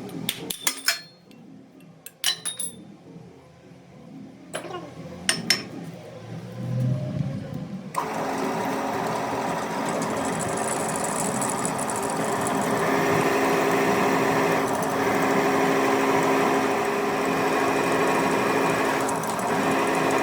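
A few sharp metal knocks and clinks, then, about a third of the way in, a workshop machine tool starts suddenly and runs steadily with a whirring hum.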